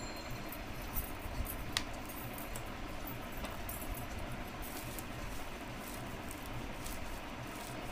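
Wind buffeting the microphone in a low, uneven rumble, with light rustling and a few small clicks over it.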